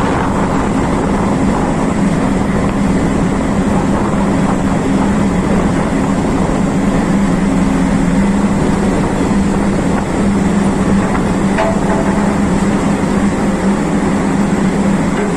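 A vehicle running steadily: an even engine drone under a constant rushing noise, with no change in speed.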